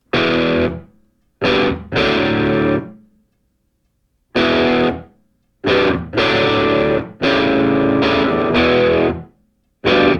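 Distorted electric guitar playing loud sustained power chords in separate stabs with full silences between them, as an intro music riff.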